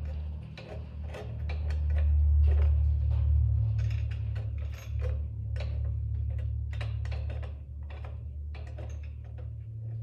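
Metal fork parts and hand tools clicking and clinking as they are handled and threaded together, over a steady low rumble that is loudest about two to four seconds in.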